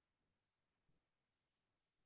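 Near silence: digital silence or a very faint noise floor, with no audible sound.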